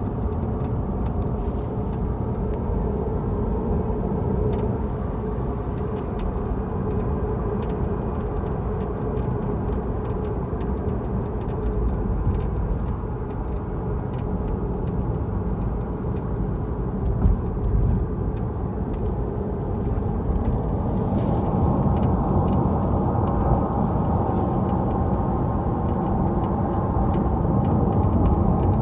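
Tesla Model 3 on the move: steady road and tyre rumble with irregular light rattling clicks, which the owner traces to the left rear suspension.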